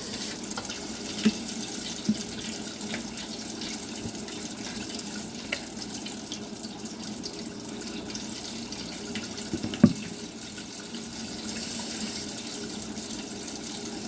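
Kitchen sink tap running steadily, with a few light knocks of dishes or utensils, the loudest near the end.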